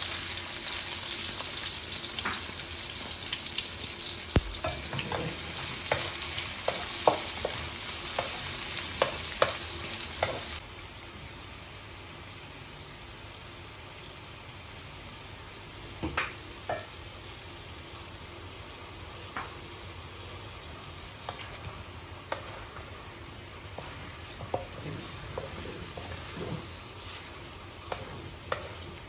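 Sliced onions and garlic sizzling in hot oil in a wok, stirred with a wooden spatula that knocks against the pan. About ten seconds in the loud sizzle drops abruptly to a quieter frying of chicken pieces, with occasional spatula knocks and scrapes.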